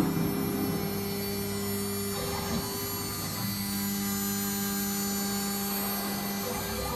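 CNC router running: steady motor hum with several fixed tones. One low tone cuts out a little after two seconds, comes back about a second later and stops again near the end, as the machine's drive motors start and stop moving.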